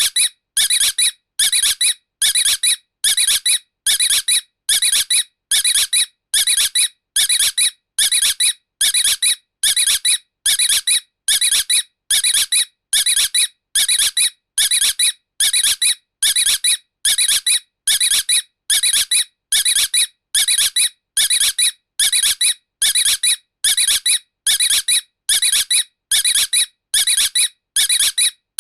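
A high-pitched squeak repeating evenly and without pause, about three squeaks every two seconds, each about half a second long.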